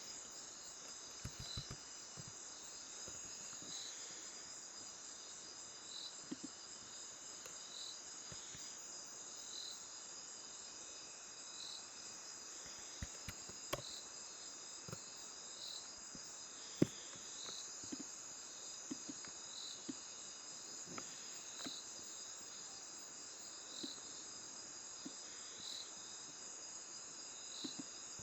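Crickets chirping steadily in the background, with a chirp about every second and a quarter over a constant high insect trill. Scattered sharp clicks, the loudest about seventeen seconds in.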